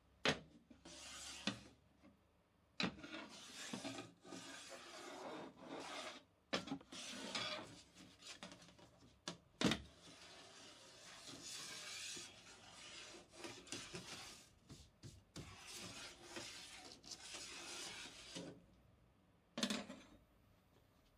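Steel rule and steel square sliding and scraping over a steel table top in irregular strokes, with a few sharp clicks as the tools are set down or knocked against it.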